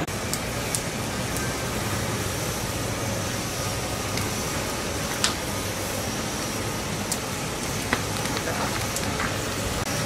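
Split firewood burning in an open steel drum: a steady rushing noise with a few sharp crackling pops scattered through it.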